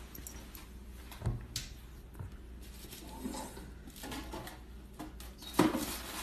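Quiet room tone with scattered faint taps and clicks, and a louder short knock about five and a half seconds in.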